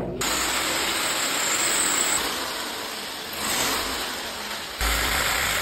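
Corded electric drill boring a hole into a painted wall to mount a whiteboard: a steady grinding noise that swells briefly about three and a half seconds in and grows louder and heavier near the end.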